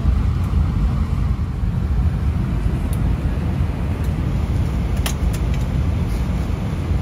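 Steady low rumble inside an Airbus A320-200 passenger cabin on the ground, with a few light clicks about halfway through.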